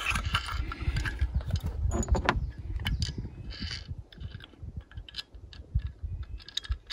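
Scattered small clicks and clinks of spotlight mounting hardware (bracket, bolt, nut) being handled, over an uneven low rumble.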